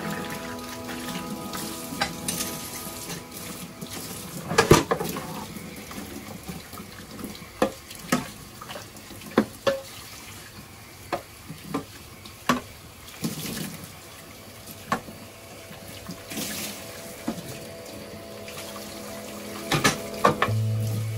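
Kitchen tap running into a stainless steel sink while dishes are rinsed, with frequent clinks and knocks as plates and containers are handled and set down.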